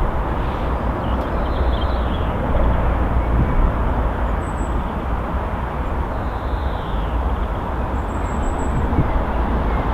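Steady rolling rumble of a train passing at speed, with a heavy low-pitched roar that holds even throughout.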